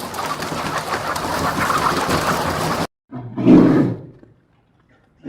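Animal sound effects: a loud, rough noise that cuts off suddenly, then a single short, deep animal call about three seconds in.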